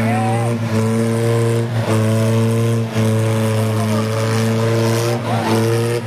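Stunt tractor's engine running hard at high revs, holding one steady pitch with short dips about once a second.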